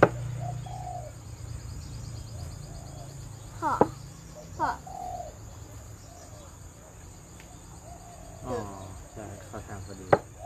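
Plastic chess pieces set down on the board with sharp clicks: once at the start, once about four seconds in, and once near the end. Birds chirp and insects whirr in the background.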